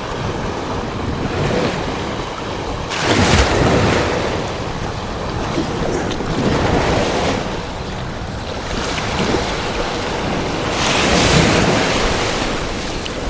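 Surf breaking and washing on the beach, swelling louder about every four seconds, with wind rumbling on the microphone.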